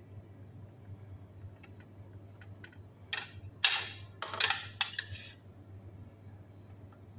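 Kitchen handling noise: a few short scraping and rustling sounds between about three and five seconds in, the sharp first one the loudest. A faint low steady hum runs underneath.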